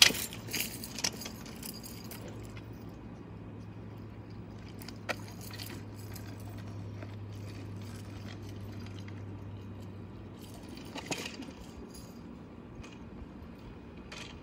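A bunch of keys on a belt key ring jangling in quick clinks for the first couple of seconds, then a steady low hum with a single click about five seconds in and a few clinks about eleven seconds in.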